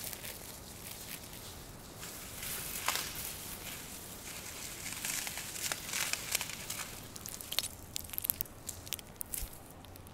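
Clear plastic wrapping crinkling and tearing as it is cut and pulled off a wrapped sculpture, in irregular rustles and crackles with sharper snaps in the second half.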